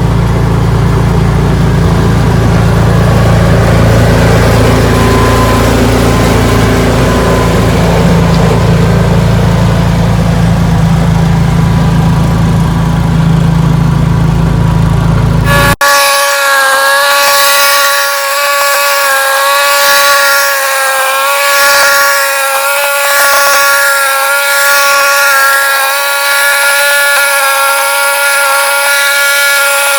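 Ariens 624E snowblower engine running steadily with a deep rumble. About sixteen seconds in, the sound cuts abruptly to a higher, whining engine note without the rumble, which wavers slightly in pitch.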